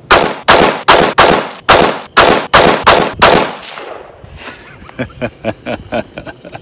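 ATI Alpha Maxx polymer AR-15 firing Tula steel-cased .223 ammunition: about nine shots in quick semi-automatic succession over roughly three seconds, each with a short ringing echo.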